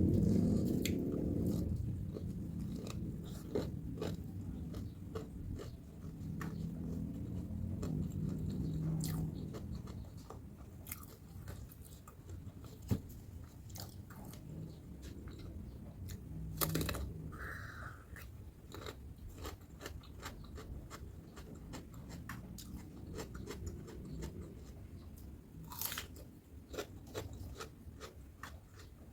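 Close-miked chewing of crispy battered fried tempeh, with sharp crunches scattered throughout. The chewing is heaviest in the first few seconds and lighter later.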